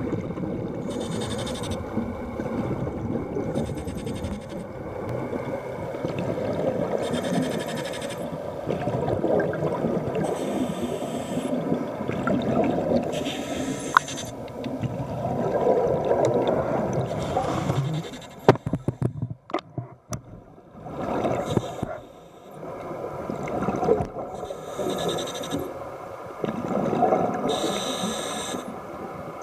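Muffled underwater noise picked up by a camera in a waterproof housing: a steady low rushing of water, with a hiss that comes and goes every two to three seconds. A cluster of sharp knocks and clicks comes about two-thirds of the way through.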